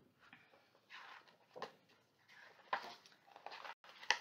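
A paperback picture book being opened and its pages turned: several soft paper rustles, with a sharper page flap near the end.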